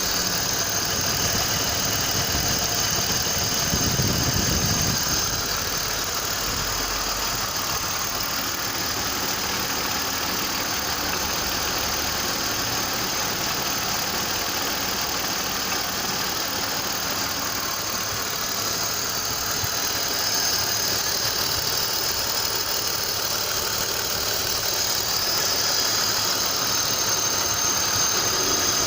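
BMW M52TU 2.8-litre straight-six (M52B28) running steadily with a rhythmic, dull knocking whose cause is unknown.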